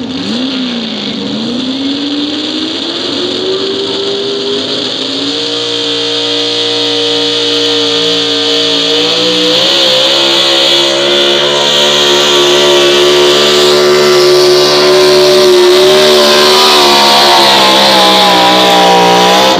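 Pickup truck's engine at full throttle, pulling a weight-transfer sled. The engine revs up over the first few seconds, then holds high and steady and gets louder as the truck comes closer. Near the end the pitch sags slightly.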